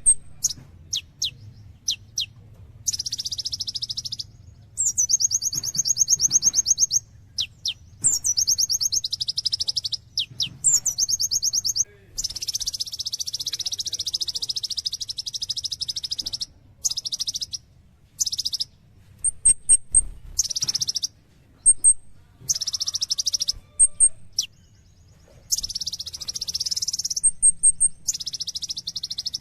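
Kolibri ninja (konin) sunbird singing a busy song: bursts of fast, high, buzzy trills separated by short gaps, with brief high chirps and quick downward-sweeping notes in between.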